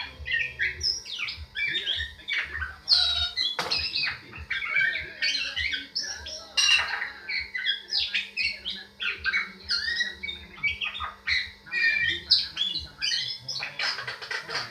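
Hill myna (ciung) calling loudly in a fast, varied stream of whistles, squawks and chirps, turning into a dense run of rapid scratchy notes near the end.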